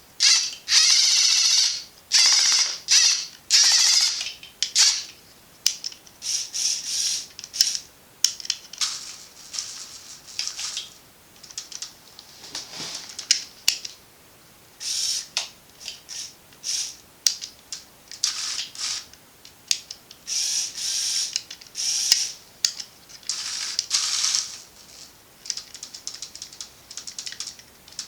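Small electric motors and plastic gears of a remote-controlled Lego Technic excavator whirring in many short stop-start bursts, roughly one a second. The longest and loudest bursts come near the start.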